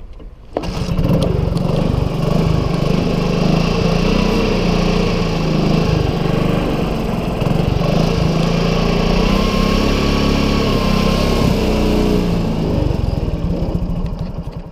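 LML Star 200 scooter's single-cylinder engine running through an aftermarket Leo Vince Sito exhaust, a steady note with small swells of throttle. It comes in sharply about half a second in and fades away near the end.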